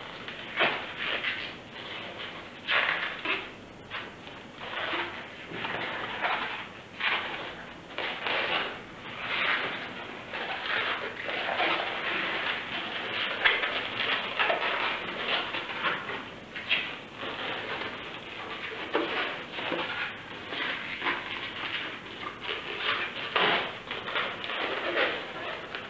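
Inflated latex 160 modelling balloon squeaking and rubbing in irregular bursts as it is knotted and twisted by hand into bubbles.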